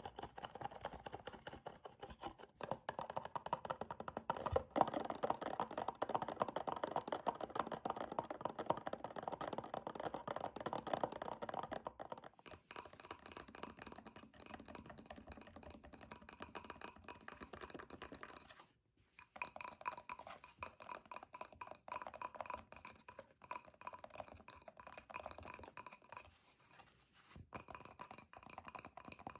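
Very fast fingernail tapping, a dense unbroken stream of small clicks. The tone changes about twelve seconds in, and the tapping breaks off for a moment near nineteen seconds before resuming.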